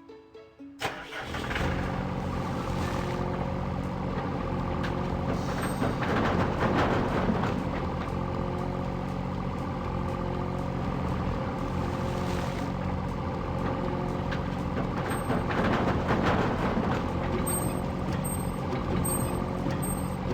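A motor vehicle engine comes in about a second in and runs steadily, with a series of short high beeps in the last few seconds.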